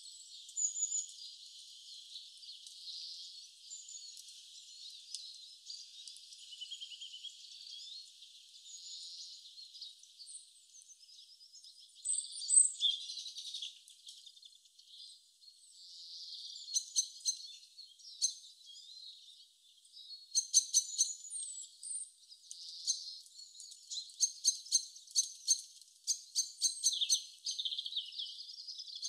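Birds chirping and singing, thin and high-pitched, with quick ticking trills growing busier over the second half.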